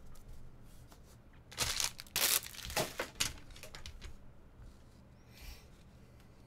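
Trading cards and foil card-pack wrappers being handled: a few short rustling sounds in quick succession about two seconds in, and one faint one later.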